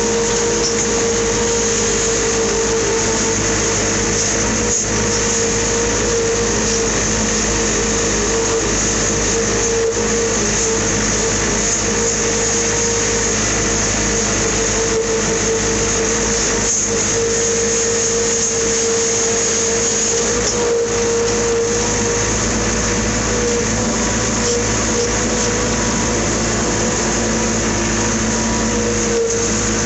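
Farm machine's engine running steadily under a constant whine.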